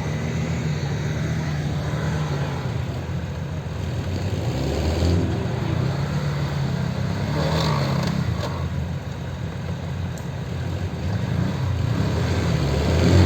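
Toyota BJ40 Land Cruiser's four-cylinder diesel engine working off-road, its note rising and falling with the throttle and climbing toward the end. A couple of brief knocks come about midway.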